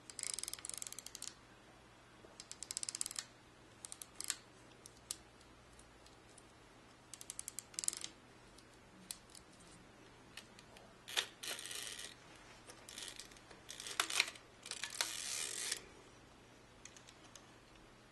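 Pentacon Six medium-format SLR worked by hand: about five short bursts of fast ratcheting clicks from its mechanism, with single sharp clicks between them.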